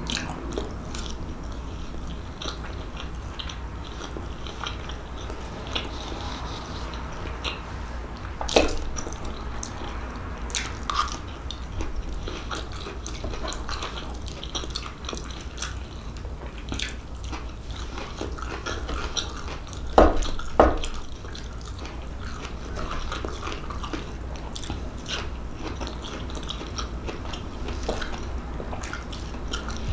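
Close-miked chewing and biting of meatloaf and steamed broccoli, a steady run of small wet mouth clicks. A few louder knocks stand out, the loudest two in quick succession about two-thirds of the way through.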